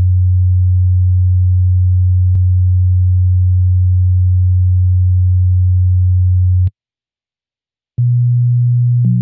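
Feedback drone from an OP-1 synthesizer looped through a Strymon BigSky reverb pedal: a steady, pure low tone that cuts off abruptly. After a second of silence a slightly higher low note starts, and a second, higher note joins it near the end.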